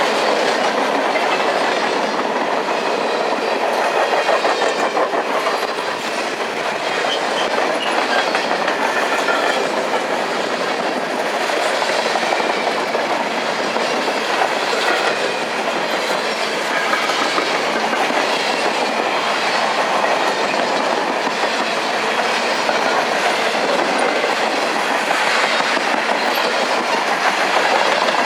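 Freight train cars rolling past steadily, their wheels clicking over the rail joints.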